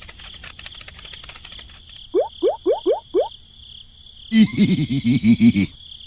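Cartoon sound effects for an animated figure: a rapid patter of ticks, then five quick rising whistles, then a low, wobbling, voice-like call about a second long.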